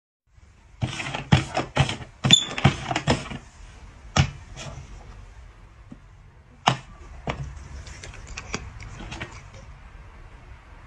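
A quick run of about ten sharp knocks and taps, then single taps spread out further apart.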